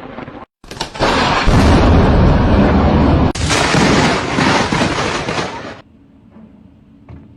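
Thunder from a close lightning strike: a very loud crash and rumble that overloads the microphone. It lasts about five seconds, with a sudden jump midway, and is cut off abruptly near the end.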